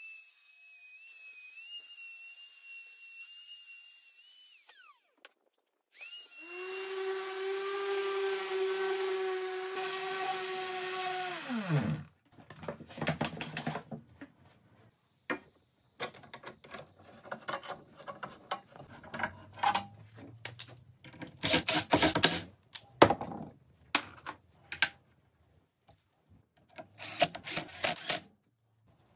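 Woodworking power tools one after another. An electric plunge router whines at a high pitch for the first few seconds as it cuts oak. After a short break, a lower-pitched tool motor runs steadily and then winds down. The rest is short scattered whirrs and knocks, ending with a cordless drill driving screws into a router-table insert plate.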